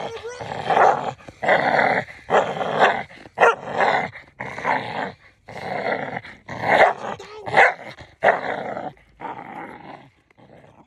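Pit bull growling while tugging on a rope toy, in short repeated bursts about every two-thirds of a second that die away near the end.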